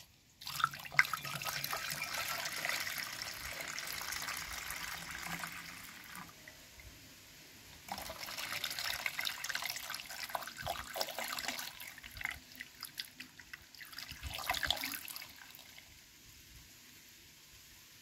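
Homemade apple vinegar poured from a plastic tub into a funnel, splashing and trickling. It comes in two long pours, one of about five seconds and one of about four seconds, then a few shorter splashes about three quarters of the way through.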